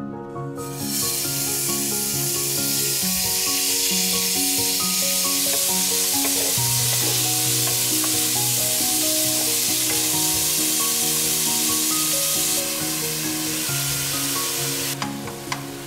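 Diced beef sizzling hard in sesame oil as it is stir-fried in a pot with a wooden spatula. It starts suddenly about half a second in and dies down over the last few seconds, with a few light clicks near the end. Gentle background music plays underneath.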